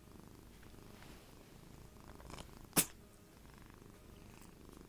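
Domestic cat purring steadily, with one sharp sneeze a little under three seconds in, part of a sneezing fit.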